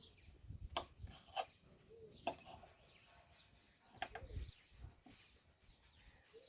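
Faint bird chirps in the background, with a few soft clicks and taps scattered through.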